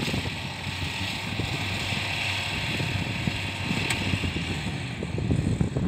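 Engine of a tracked rice-field carrier running steadily as it crawls across the stubble, loaded with sacks of harvested rice.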